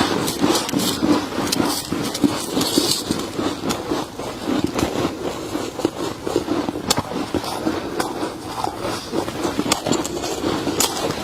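Close-miked chewing of freezer frost: dense, irregular crunching, with frequent sharp crackles.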